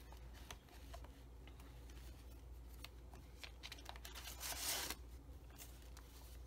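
Pages of a handmade paper junk journal being handled and turned: faint paper rustling and light taps, with one louder rustle about four and a half seconds in.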